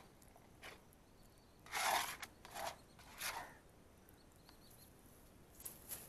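Plastic scraper scraping sticky halwa off the inside of a large metal kadai, in a handful of short scrapes, the loudest about two seconds in.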